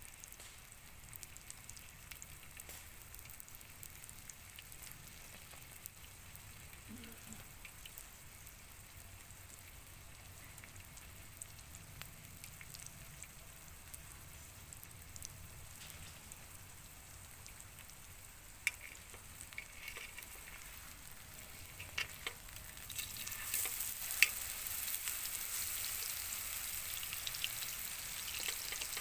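Food frying with a faint crackle that swells to a louder sizzle about 23 seconds in, with a few sharp clicks.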